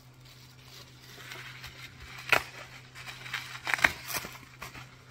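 Bubble wrap and honeycomb kraft packing paper rustling and crinkling as a package is unwrapped, with a few sharp crackles a little over two seconds in and again near four seconds.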